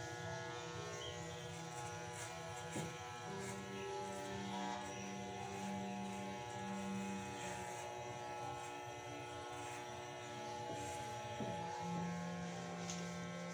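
Slow background music with long held notes changing every few seconds, over the steady buzz of electric hair clippers shaving a head.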